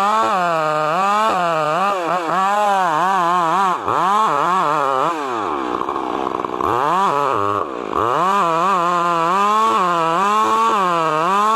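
Chainsaw running under load, its engine pitch rising and falling as it cuts. About halfway through the engine speed sags well down, then revs back up.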